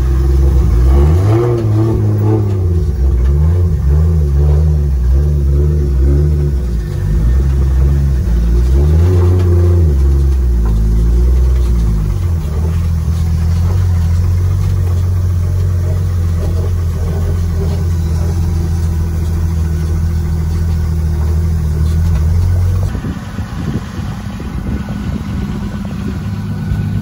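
A Nissan S13's forged Toyota 2JZ straight-six engine running, its revs rising and falling several times, then settling into a steady idle. About 23 seconds in, the engine note stops and the sound drops to a lower, rougher noise.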